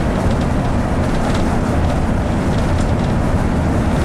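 Bus running on the road, heard from inside the passenger cabin: a steady low engine and road rumble with a few light rattles.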